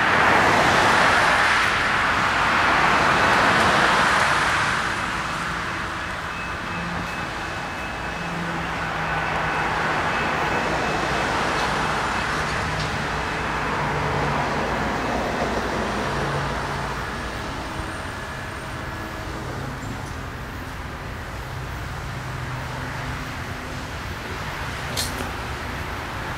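Road traffic passing: cars swell and fade, loudest in the first few seconds and again in the middle, over a faint low hum. A single sharp click near the end.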